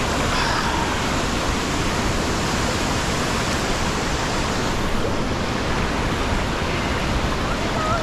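Steady rushing of a 100-metre waterfall and the fast river rapids below it, an even wash of water noise with no breaks.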